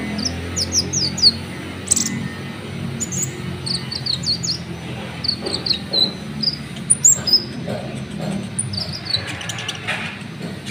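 Konin (kolibri ninja) bird song: rapid high chirps and quick sliding notes in short repeated bursts, over a low steady hum that fades after the first couple of seconds.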